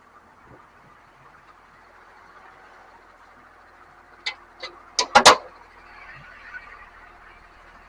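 About five sharp knocks in quick succession, starting about four seconds in and loudest at the end, over the faint low hum of a running engine: the clatter of a grapple truck at work.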